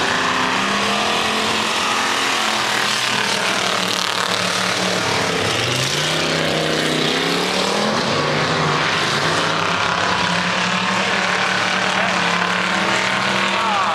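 Pure Stock dirt-track race cars running laps, their engines droning steadily, with one engine's pitch rising sharply about five seconds in.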